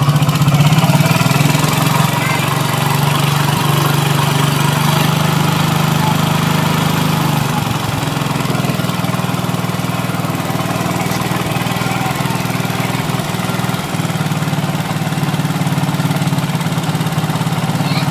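Hero Glamour 125's single-cylinder four-stroke engine running steadily at a fast idle. It comes up over the first second as the idle speed screw on the carburettor is turned to raise the RPM, ahead of setting the air screw for mileage.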